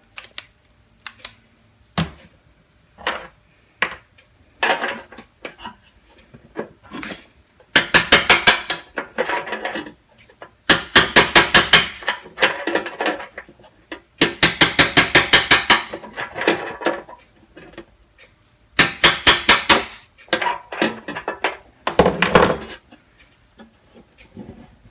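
Metal-on-metal hammer taps on a small sheet-metal toolbox, tapping a part out far enough to free the lid. Scattered single taps come first, then five runs of quick taps, several a second, each run lasting one to two seconds.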